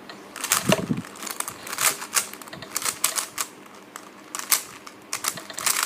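Rubik's Cube layers being turned by hand: a quick, irregular run of plastic clicks and clacks, several a second.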